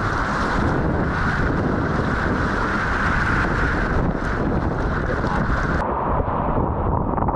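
Whitewater rapid rushing and splashing around a kayak, heard with heavy wind and water noise on the camera's microphone. About six seconds in the sound suddenly turns duller and muffled.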